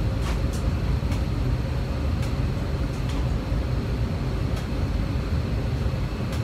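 Steady low rumble and rush of air inside a parked airliner's cabin, the sound of its ventilation running, with a few light clicks.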